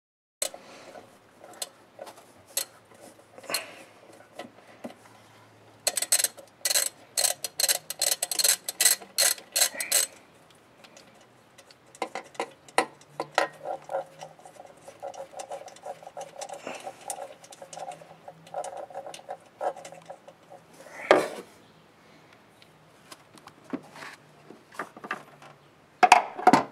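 Hand ratchet wrench clicking in quick runs of strokes, the longest lasting about four seconds, among scattered knocks of tools on metal engine parts.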